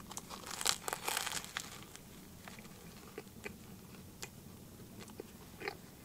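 A person biting into a grill-toasted deli roll: a crisp crunch of the crust about a second in, then chewing with scattered small crunches.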